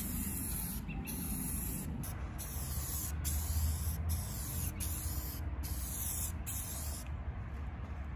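Aerosol rattle-can spray paint hissing steadily as it is sprayed in short passes, broken by brief pauses about once a second and a longer pause near the end. A low rumble runs underneath.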